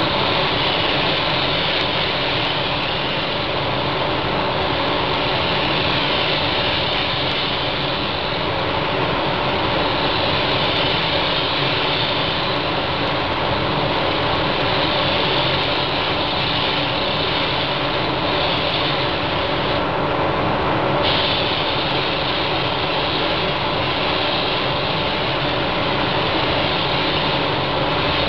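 SATAjet 4000 paint spray gun hissing steadily with compressed air as it sprays paint onto a car body, over a steady hum. The hiss drops away for about a second about two-thirds of the way through.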